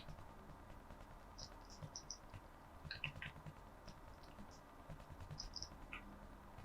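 African grey parrot eating a grape: faint, scattered small clicks of its beak with a few brief, high-pitched peeps.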